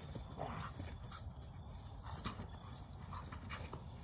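A mixed-breed dog panting in short, irregular breaths while it plays, with a few faint clicks and scuffs.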